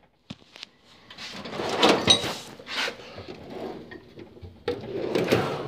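Tool chest drawer sliding on its runners, in two spells: one about two seconds in and one near the end.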